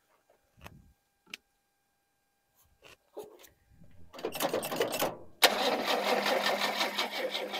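A 1976 Holden HX ute's straight-six being turned over by its starter motor: a few light clicks, then about four seconds in the cranking starts with a rapid, even beat, breaks off for a moment and resumes louder, without the engine catching.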